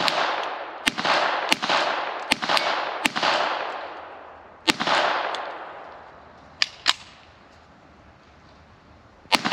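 Remington .22 rimfire braced pistol firing about nine single shots at irregular intervals. Each sharp crack is followed by a long fading echo, with pauses of a couple of seconds between some shots. The gun is jamming, which the shooter puts down to holding the magazine back while shooting.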